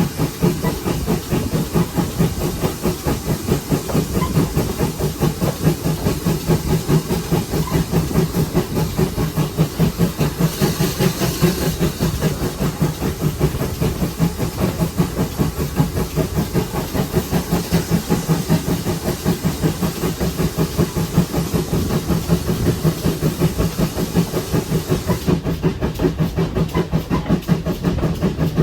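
Great Western 5700-class pannier tank steam locomotive running, its exhaust beating rhythmically over a constant hiss of steam. The hiss swells briefly about ten seconds in.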